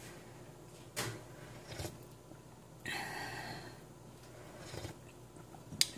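A few soft clicks over a low steady hum, and about three seconds in a short breath close to the microphone.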